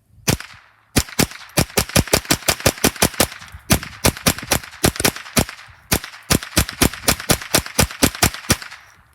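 A .22 LR semi-automatic rifle in a rapid magazine dump: one shot, then a fast string of about forty shots at roughly five a second, with a brief break midway.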